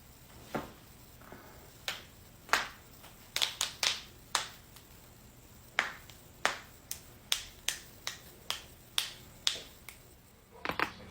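Joints cracking: more than a dozen sharp, separate pops at uneven intervals, some in quick pairs.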